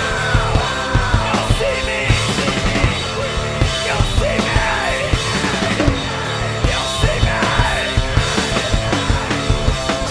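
A live rock band playing an instrumental passage: drum kit and bass guitar, loud and driving, with a lead line whose notes bend up and down.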